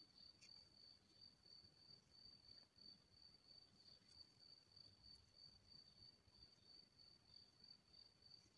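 Near silence with a faint, high-pitched chirring from an insect, pulsing about three times a second without a break.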